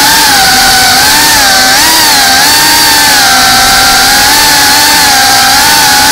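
FPV racing drone's brushless motors and propellers whining loudly, heard from on board the drone. Several tones rise and fall together as the throttle changes.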